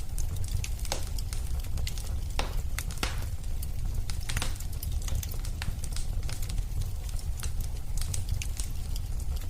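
Wood fire burning in a fireplace: a steady low rumble with frequent irregular sharp crackles and pops.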